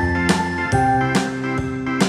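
Instrumental background music with a steady beat of about two strikes a second over held notes.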